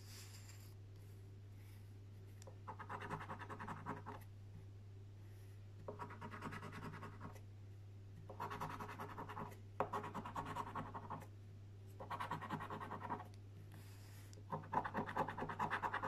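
A coin scratching the coating off a Mega Cashword scratchcard on a table: six spells of quick back-and-forth scraping, each a second or so long, with short pauses between. The first starts a couple of seconds in and the last is the longest. A faint steady low hum lies underneath.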